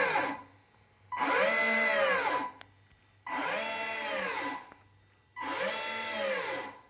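540-size electric motors of a 3D-printed RC tank driving PLA gears, run up and back down in short bursts: one run dies away at the start, then three more follow, each about a second and a half long. In each burst the whine rises in pitch and falls back, with a high hiss over it.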